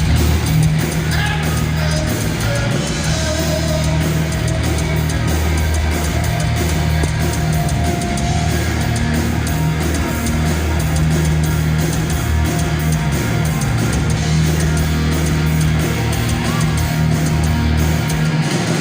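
Heavy metal band playing live: distorted electric guitars over bass guitar and drums, loud and continuous.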